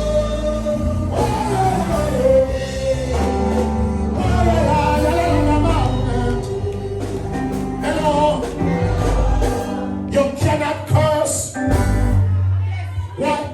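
Gospel music: a voice singing a melody over a band with a steady bass line and drum hits, the drumming busier near the end.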